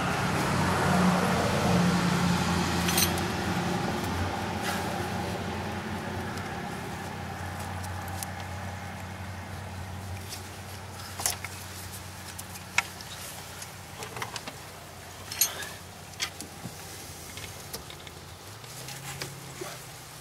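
A steady low vehicle engine hum that slowly fades over the first half, with scattered light clicks and knocks as the Miata's ignition coil pack and its metal bracket are handled and fitted back in place.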